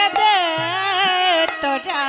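A woman singing Bengali Lila Kirtan into a microphone: a long, wavering line whose pitch bends up and down, with a short break near the end.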